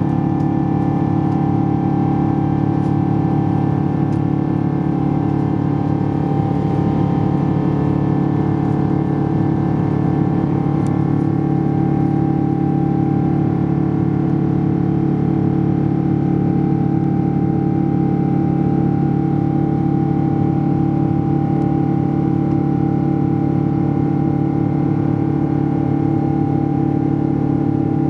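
Boeing 777-200ER's GE90 turbofan engines running at climb power, heard inside the cabin from a window seat: a steady loud drone with several constant humming tones that does not change.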